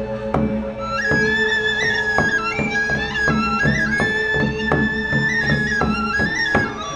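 Balinese gamelan accompanying a topeng mask dance: a high, sustained melody line that slides and bends between notes over steady ringing metallophone tones, punctuated by regular drum and cymbal strokes.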